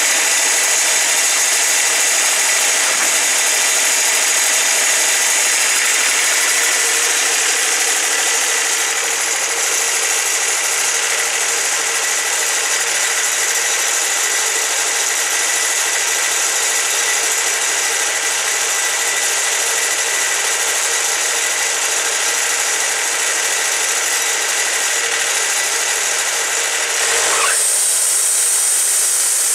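Wood-Mizer LT40 portable band sawmill running, its band blade sawing steadily through a cottonwood log as the head travels along it. Near the end the sound changes abruptly, turning brighter and losing its low hum, as the cut ends.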